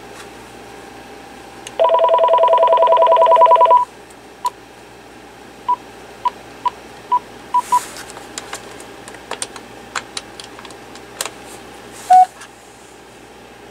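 Cordless phone electronic tones: a two-pitch warbling signal for about two seconds, then a run of short single-pitch key beeps mixed with light button clicks. A short loud beep comes near the end.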